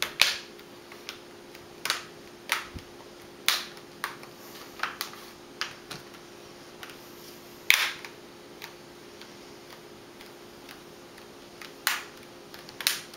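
Plastic screen bezel of an Acer Aspire 1551 laptop being pressed back onto the lid, its clips snapping into place one by one. About a dozen sharp plastic clicks come at irregular intervals, the loudest about eight seconds in.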